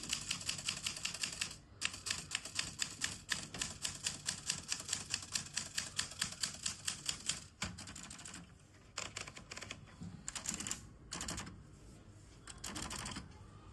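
Olympia Traveller Deluxe portable manual typewriter being typed on quickly, a steady patter of key strikes about five or six a second with one short pause. About halfway through the typing stops, and it turns quieter with a few brief scraping bursts.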